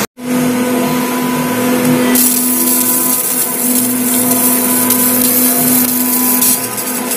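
Laser marking machine running while it engraves lettering into a black metal air rifle chamber: a steady mechanical hum with a constant low tone and a hiss that turns brighter about two seconds in.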